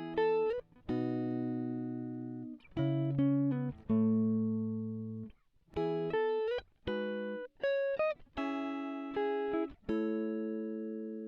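Background music: a guitar playing a run of plucked chords, each struck sharply and left to ring and fade.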